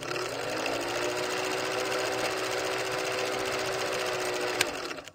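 Film projector running: its motor spins up at the start, then whirs and clatters steadily, with one sharp click near the end before it cuts off.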